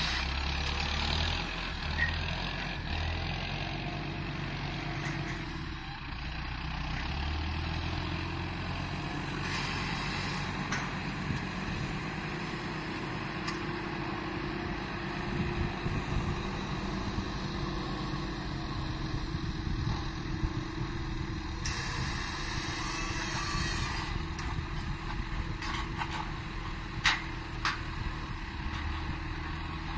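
Heavy vehicle engine running steadily during corn silage loading, with a few short sharp knocks, two of them near the end.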